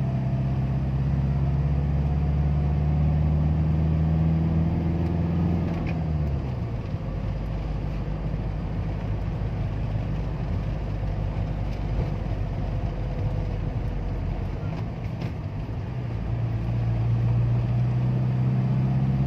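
Car engine and road noise heard from inside the cabin while driving. A steady engine hum drops away about six seconds in, leaving mostly tyre and road rumble, and the hum comes back near the end.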